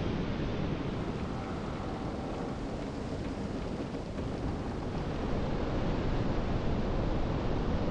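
Wind on the microphone over open water with the wash of water: a steady noisy rush with no distinct events, growing a little louder about two thirds of the way through.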